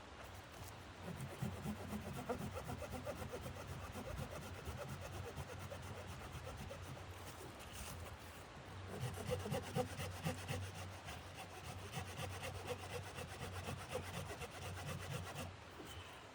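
Rapid, repeated rasping strokes, as of something being rubbed or scraped back and forth, with a brief pause about halfway through.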